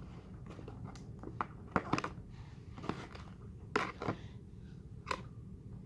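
Irregular sharp clicks and crunches, about seven of them, from handling glue-and-sugar slime and its containers.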